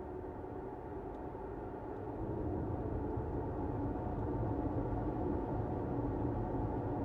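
A car driving along a road: a steady low road and tyre rumble that grows slightly louder about two seconds in.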